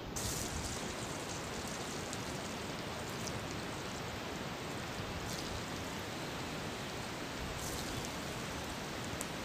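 Potato chunks going into hot refined oil in a kadai, starting a sudden loud sizzle that carries on as a steady frying hiss with crackles. The sizzle flares up again about five and eight seconds in.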